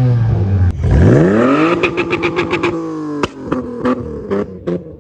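Modified car's engine revving up hard under acceleration, then a rapid run of sharp exhaust pops and bangs, followed by scattered crackles from the exhaust as the engine note fades away.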